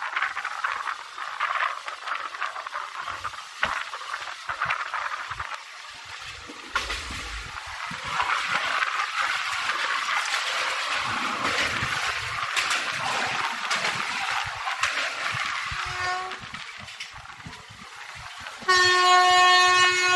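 Express train running along the track: steady wheel and coach rolling noise with scattered clicks. Near the end, a short toot and then a loud, steady blast of the electric locomotive's horn.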